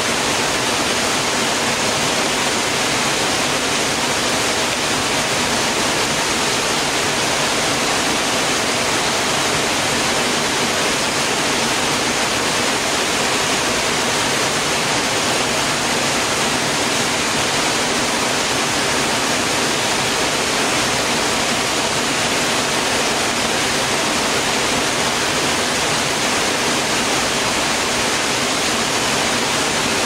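Small woodland waterfall pouring over rocks into a pool: a steady, unbroken rush of falling water.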